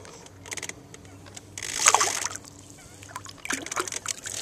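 Water splashing and sloshing as a hand-held largemouth bass is released at the boat's side. There are a few short splashes, with the loudest about two seconds in.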